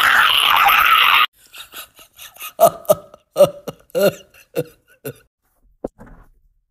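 A person's voice: a loud, harsh, noisy blast that cuts off sharply about a second in, then a run of about eight short, clipped vocal bursts over the next few seconds.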